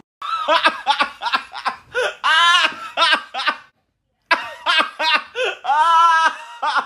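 A woman laughing loudly and hysterically in two long, high-pitched bouts, with a short pause between them.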